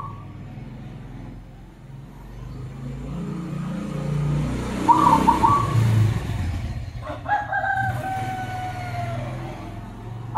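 Zebra dove (perkutut) giving one short burst of its chattering coo about five seconds in. A rooster crows once, a long call falling slowly in pitch, a couple of seconds later. Under both is a low rumble that swells through the middle and fades.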